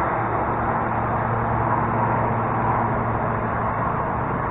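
Steady hiss of road traffic with a low hum underneath, unchanging throughout.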